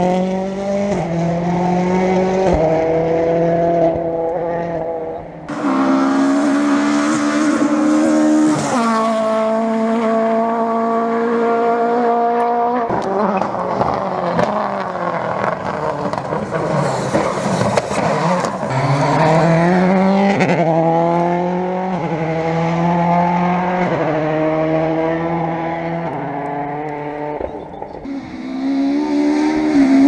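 Rally car engines at full throttle, one car after another. Each climbs in pitch through the revs and drops back at every upshift. Near the middle, one car's engine falls in pitch as it slows, then climbs again as it accelerates away.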